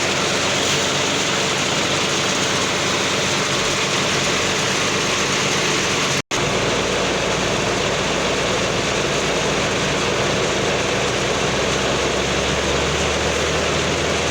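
Heavy diesel road-construction machinery running steadily, a dense engine noise with a low hum beneath it. It cuts out for a split second about six seconds in.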